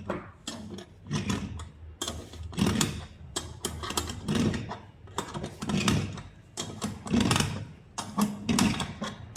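The screw of the metal clamp band on a pool light's lens being tightened with a tool: a run of repeated ratcheting mechanical strokes, each under a second apart.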